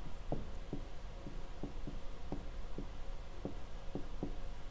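Dry-erase marker writing on a whiteboard: a run of short, faint ticks and squeaks, about three a second at uneven spacing, over a steady low room hum.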